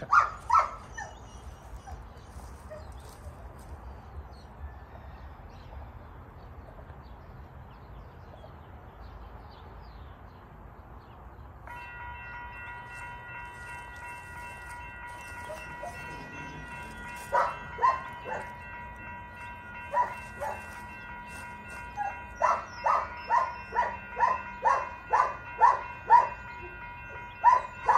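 Railroad grade-crossing warning bell switching on suddenly partway through: a steady ringing tone, then repeated dings, about two a second near the end, as the crossing activates ahead of a train while the gate arm is still up.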